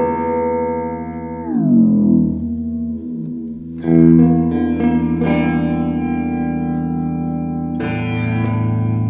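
Electric guitar played through an Electro-Harmonix Polychorus modulation pedal. A held chord dives down in pitch about a second and a half in. A new chord is struck about four seconds in and left to ring with a slight wavering, and the chord changes again near the end.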